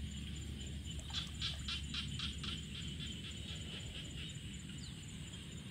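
Insects chirping in a rural field: a steady, evenly pulsed high trill and a chirping chorus, with a quick run of rapid chirps about a second in, over a steady low rumble.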